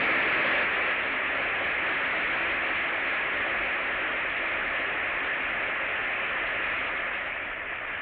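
Audience applauding steadily, dying away near the end.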